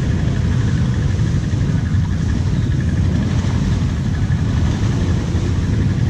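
An ATV engine idling steadily, close to the microphone.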